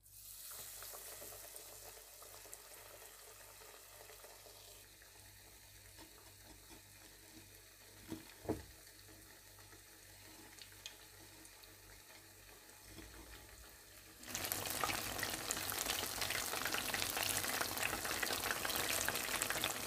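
Breaded chicken pieces frying in hot oil in a pan. A quiet steady sizzle runs first, with a couple of short knocks about eight seconds in. From about fourteen seconds in, a much louder, dense crackling sizzle takes over.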